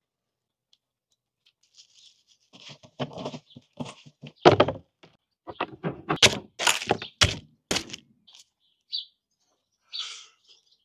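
Sharp knocks and clacks of a knife and a hinged wire grill basket of baked fish being handled on a wooden cutting board and stone counter. They begin about two seconds in, and the loudest strikes come in a quick cluster between about four and eight seconds in.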